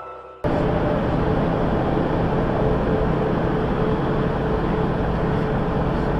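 The tail of a piece of music fades out, then a steady in-cab drone from a truck cruising at highway speed starts abruptly: engine hum and road noise with a constant pitch.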